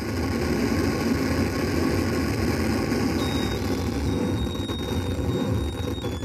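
Street traffic noise: a diesel coach and passing cars making a steady, dense rumble that starts abruptly, with a faint thin high whine from about halfway in.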